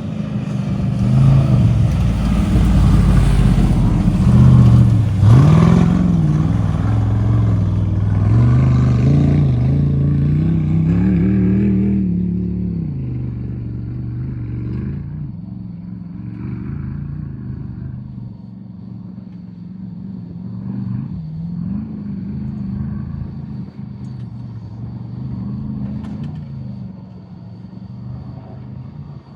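Off-road race truck engine revving, rising and falling in pitch, loud and close for the first twelve seconds or so, then fainter as it keeps revving up and down.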